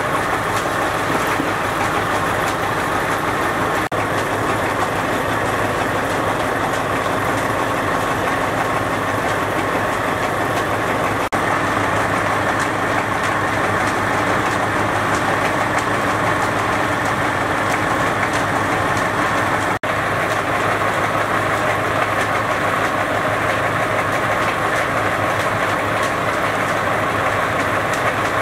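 A motor or engine running steadily, with an unchanging hum.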